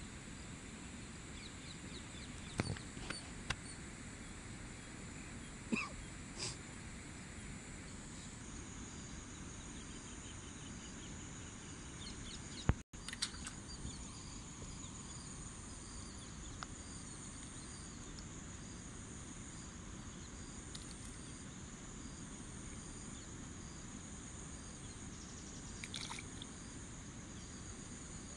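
Steady high-pitched chirping of an insect chorus in open rural country. A few brief louder calls and clicks sound over it, the sharpest about halfway through.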